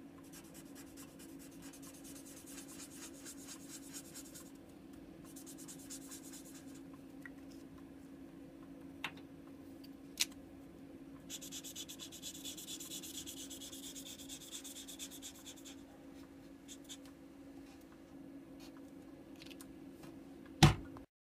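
Felt-tip markers scratching and rubbing on paper in quick strokes as a drawing is coloured in, in two longer spells with a couple of small clicks between, over a steady low hum. Near the end comes a single loud knock on the desk, a signal to stop recording.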